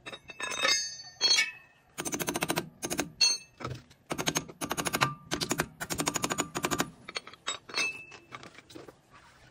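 Quick bursts of sharp metal-on-metal strikes, a hammer tapping on the bare rear wheel hub of a Chevrolet Aveo during a rear wheel bearing replacement, several rapid runs of taps with a ringing tone. Near the start, steel hand tools clink together with a brief ringing.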